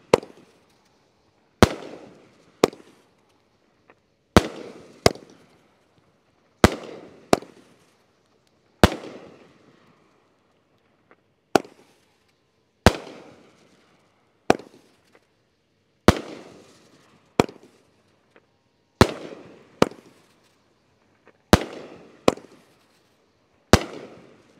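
A 25-shot 500-gram consumer firework cake, the Demon Stinger, firing shot after shot at about one every two to two and a half seconds. Each shot is a sharp bang that trails off, and most are followed less than a second later by a second, smaller crack.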